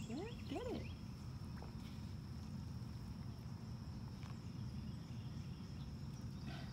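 Steady, high-pitched drone of insects, with a couple of short rising-and-falling calls in the first second, over a low rumble.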